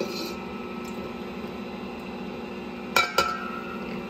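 A ceramic bowl clinks twice against the rim of a stainless steel mixer bowl about three seconds in, each clink ringing briefly, as beaten eggs are tipped out of it. A steady low hum runs underneath.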